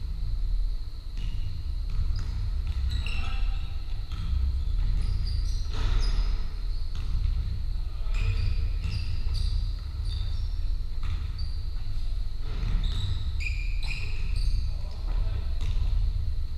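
Basketball being dribbled and bounced on a wooden sports-hall floor during a game, with sharp knocks and short high squeaks of trainers on the floor, over a steady low rumble.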